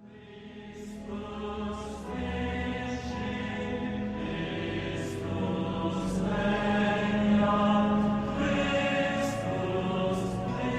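Slow choral chant over a held low note, fading in at the start.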